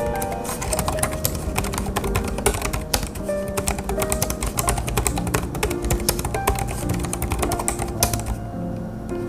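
Rapid typing on a Hansung BK300 compact Bluetooth keyboard with scissor-switch (pantograph) keys: a quick run of key clicks that stops about eight seconds in. Background music plays throughout.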